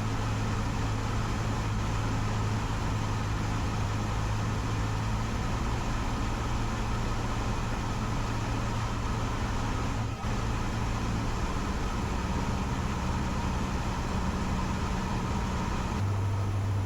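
Cessna 150's four-cylinder Continental O-200 engine and propeller droning steadily, heard inside the cabin in flight. The note steps down in pitch about two-thirds of the way through and again near the end as power is reduced for the landing approach.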